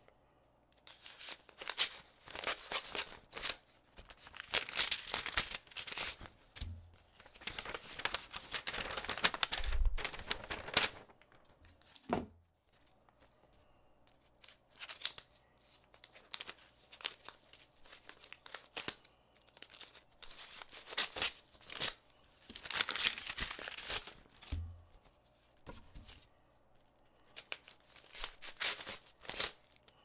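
Paper envelopes and letters being slit open and handled, rustling in spells of a few seconds with short pauses between them, and one sharp tap about twelve seconds in.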